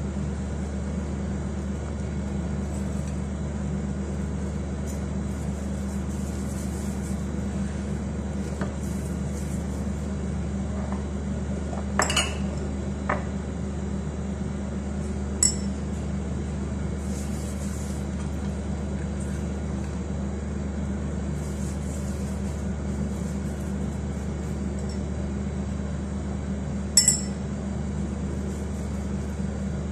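A few sharp clinks of glass and china dishware while a steak is seasoned by hand, the loudest near the end, over a steady low hum.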